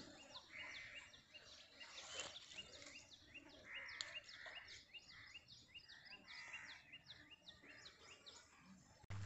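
Faint birds chirping, many short quick chirps that each drop in pitch, repeating over a soft background hush. The sound cuts off abruptly near the end.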